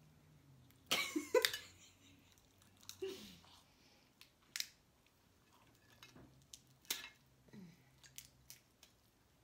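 Crab legs being cracked and picked apart by hand, with scattered sharp snaps and clicks of shell and utensils. A few short murmured vocal sounds mix in, the loudest about a second in.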